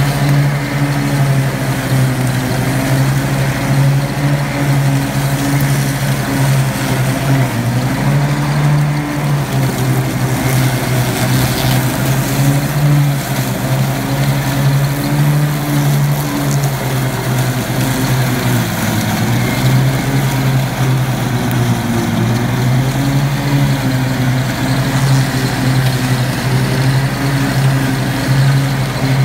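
Ride-on lawn mower's engine running steadily under load while it cuts through blackberry brambles and tall grass. The engine note dips in pitch briefly twice, about nine and nineteen seconds in.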